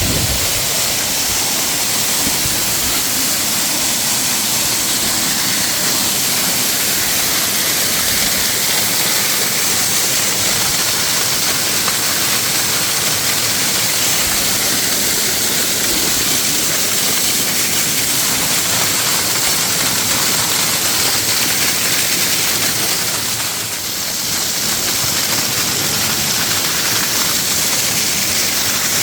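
Waterfall: falling water rushing steadily with a hissing spray. The level dips briefly about three-quarters of the way through.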